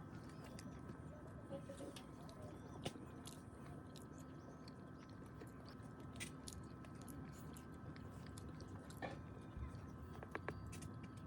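Faint chewing and small mouth clicks of people eating freshly made bungeoppang (fish-shaped pastries), with scattered light clicks over a faint steady hum.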